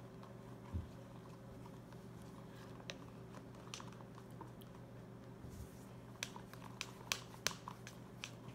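A wooden craft stick stirring glue and shaving cream in a plastic cup: scattered light clicks and taps of the stick against the cup, more frequent in the second half, over a faint steady hum.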